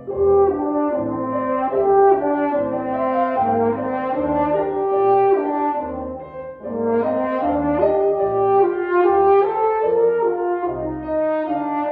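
French horn playing a moving melodic line with piano accompaniment underneath, with a brief break in the line about six and a half seconds in.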